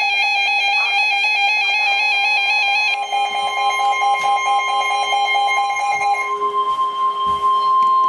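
Electronic Emergency Alert System warning tones for a severe thunderstorm warning. A rapid warbling pattern switches between pitches for about three seconds, then a pulsing tone follows. From about six seconds a steady high tone sounds.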